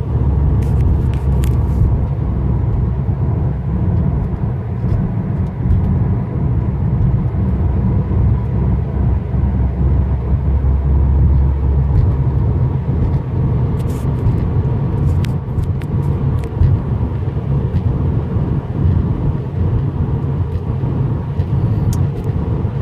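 Steady low rumble of road and engine noise inside a 2015 Subaru WRX's cabin while it is being driven.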